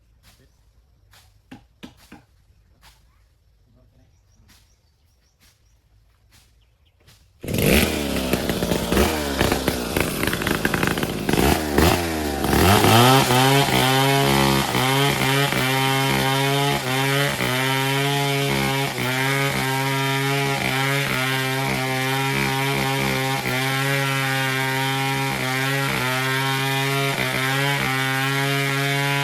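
Faint scattered clicks, then a chainsaw bursts into life about seven seconds in. Its two-stroke engine revs up and down for a few seconds, then runs steadily at high speed.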